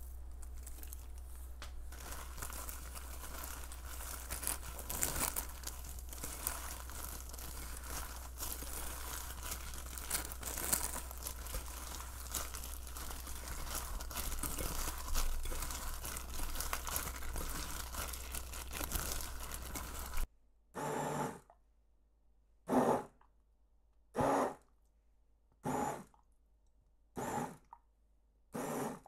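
Crinkling and crunching from food being handled and prepared, a steady crackle over a low hum for most of the time; after a sudden cut come six short crunches, about one and a half seconds apart.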